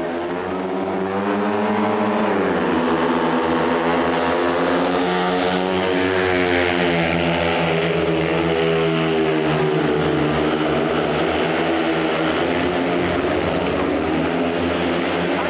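Several 500 cc single-cylinder speedway motorcycles racing, their engines revving hard. The pitch climbs at the start, drops about two seconds in, and then keeps rising and falling as the bikes go through the bends.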